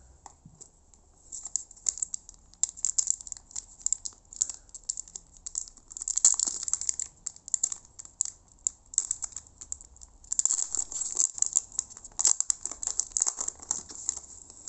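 Foil wrapper of a trading card pack crinkling and crackling as it is torn open and handled, in irregular bursts starting about a second in, busiest around the middle and again over the last few seconds.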